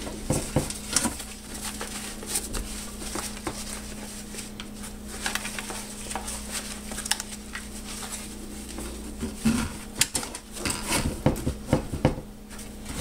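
Loaded magazine bandoliers being lifted out and pushed back into a large metal 40 mm ammo can: fabric rustling with scattered irregular knocks and clicks of the magazines and buckles against the can.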